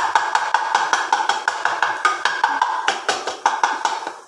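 Metal spatula rapidly chopping and striking scrambled egg masala in a pan, kothu-parotta style: fast, even clanging knocks, about six or seven a second, each with a metallic ring.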